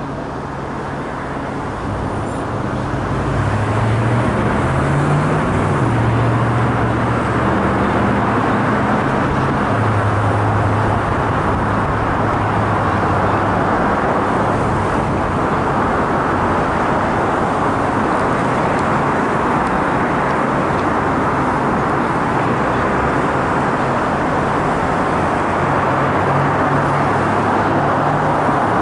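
Steady road traffic noise from a multi-lane city street: a continuous rush of cars and pickup trucks, with a low engine hum that shifts in pitch as vehicles pass. It swells over the first few seconds and then holds steady.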